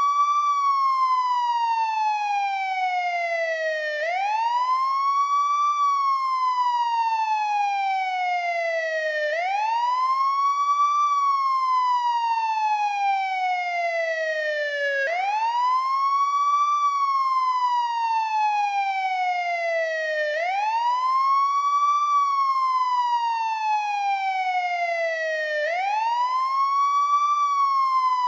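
Old-model NYPD police car siren on wail. Its tone climbs quickly for about a second and a half, then falls slowly for about four seconds, and the cycle repeats about every five seconds.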